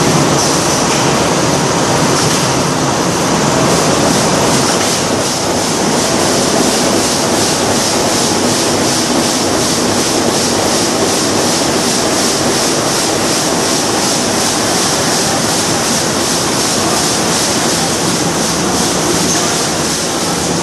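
Zangs 117 Schiffli embroidery machine running: a loud, steady mechanical clatter with an even beat of a few strokes a second.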